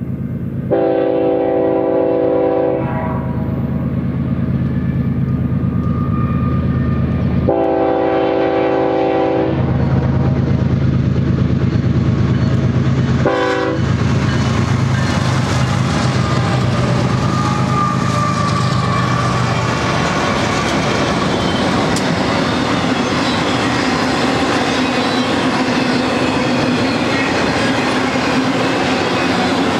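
Horn of a lead BNSF GE ES44DC locomotive: two long blasts and one short one. The diesel engines of the locomotive consist then drone past, followed by the steady rumble and clatter of the freight cars' wheels on the rails.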